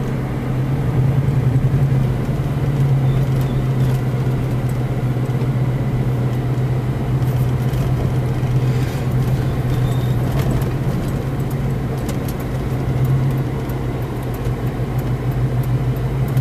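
A car's engine and road noise heard inside the cabin while driving slowly. It makes a steady low drone.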